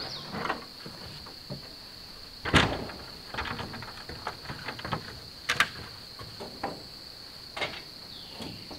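Scattered knocks and scrapes of gazebo parts and a wooden step ladder being handled, the loudest knock about two and a half seconds in and another sharp pair about five and a half seconds in, over a steady high insect drone.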